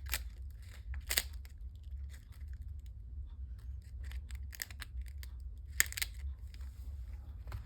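Paper and craft supplies being handled on a table: scattered rustles and sharp clicks, the loudest about a second in and twice just before six seconds in, over a steady low hum.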